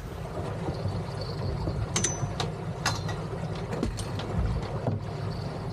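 Boat motor running steadily, a low rumble, with a handful of sharp clicks and knocks in the middle stretch.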